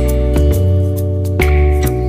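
Background music: a soft instrumental piece with plucked guitar, changing chords every second or so over a steady bass.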